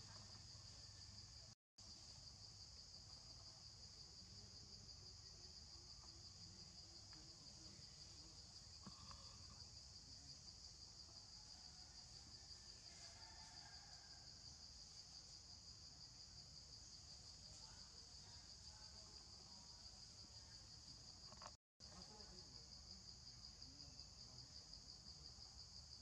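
Faint, steady high-pitched chorus of insects trilling, with the sound cutting out briefly twice.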